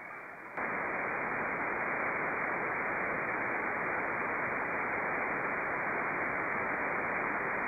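A Malachite DSP software-defined receiver in sideband mode gives a steady, dull hiss of band noise with the treble cut off by its narrow filter. No station is audible. The noise jumps louder about half a second in and then holds level.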